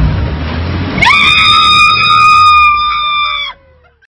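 Small Suzuki 4WD's engine running for about a second, then a person lets out a long high-pitched scream over it for about two and a half seconds. The sound cuts off suddenly near the end.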